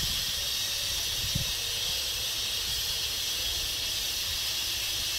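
Compressed gas hissing steadily as it flows through the fill tube into a latex high-altitude balloon during filling.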